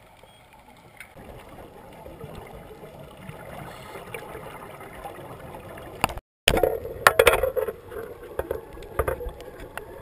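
Underwater camera audio of scuba diving: a muffled water rush that grows louder, then, after a brief dropout, louder crackling bursts of exhaled regulator bubbles.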